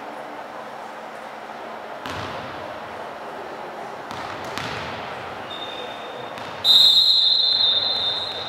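Referee's whistle, one steady high blast that starts faint and is then blown hard for about two seconds near the end, the loudest sound. Before it, a few thumps of a volleyball bounced on the wooden court floor, over a murmur of voices in the hall.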